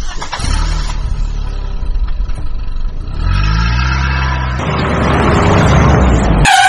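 Motor vehicle engine running with a rumble, revving up a little past halfway and getting louder toward the end.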